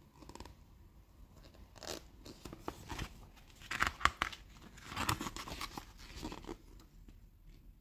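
Pages of a thick paper catalogue being flipped by hand, one after another: a run of rustles and page flicks, loudest about four seconds in.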